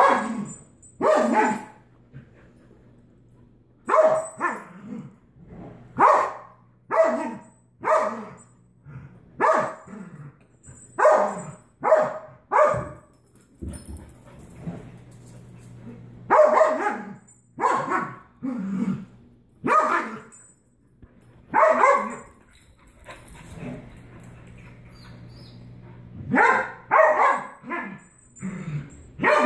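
Dog barks repeated about once a second in bouts with short pauses between, from a play tussle over a rawhide chew.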